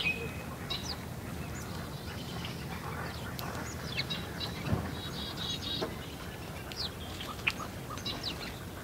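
House sparrows chirping and chattering around a seed feeder: many short, overlapping chirps scattered throughout.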